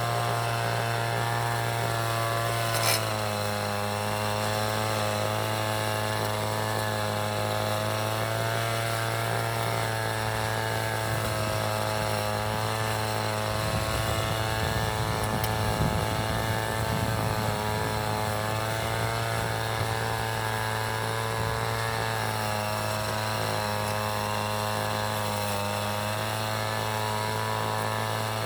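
City traffic: a steady engine drone, a low hum with many overtones that wavers slightly in pitch. There is a short sharp click about three seconds in, and a low rumble swells up around the middle.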